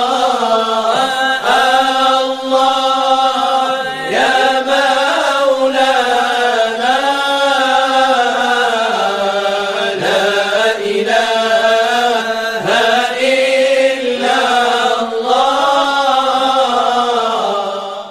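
A single voice chanting an Islamic devotional chant in long, drawn-out melodic phrases, sliding between held notes, fading out at the very end.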